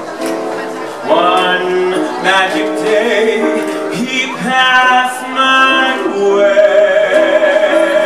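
Male vocalist singing a slow ballad live over piano accompaniment, his voice sliding between notes and holding a long note with vibrato near the end.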